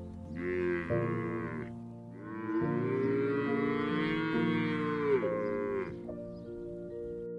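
Cow mooing twice: a short moo, then a longer drawn-out one, over soft background music.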